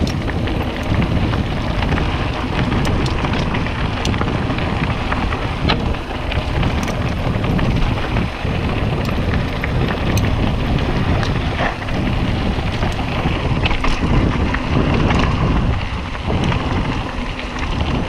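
Mountain bike rolling fast down a dirt trail: wind rumbling on the microphone over the crunch of tyres on dirt and leaves, with scattered clicks and rattles from the bike.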